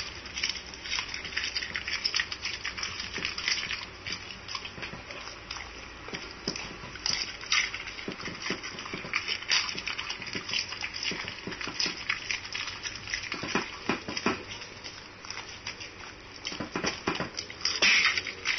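Siberian husky eating whole raw fish from a bowl: irregular wet chewing and crunching, with a louder spell near the end.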